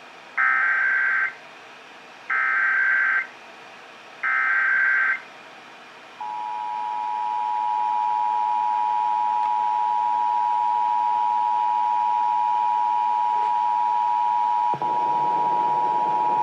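Emergency Alert System header for a required monthly test: three short bursts of screechy SAME data tones about two seconds apart, then the steady two-tone attention signal (853 and 960 Hz) held for about eleven seconds. A rush of hiss comes in under the tone shortly before it cuts off.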